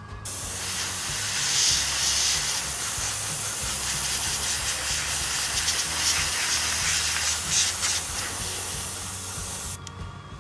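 Airbrush spraying paint onto small die-cast model parts: a steady hiss of air that starts just after the beginning, swells and dips a little, and cuts off abruptly near the end.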